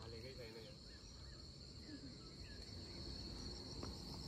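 Faint, steady high-pitched buzzing of insects, with a few faint short chirps over it.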